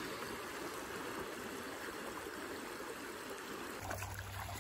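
River current flowing, a steady rush of water over stones.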